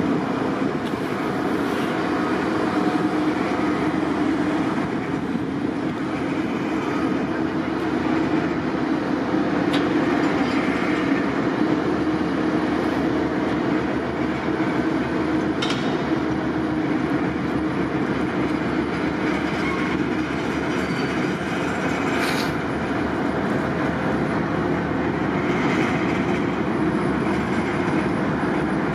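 Steady low rumble of a harbour tug's diesel engines running under load while towing a ship with a failed engine through a lock. Two brief clicks come in the second half.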